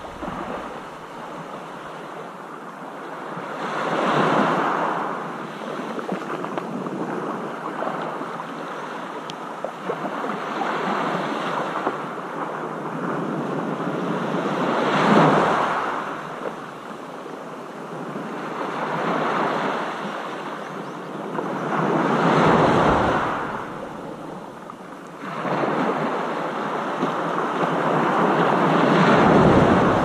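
Sea waves breaking and washing in, each one swelling into a rush of surf and fading away, one after another every few seconds.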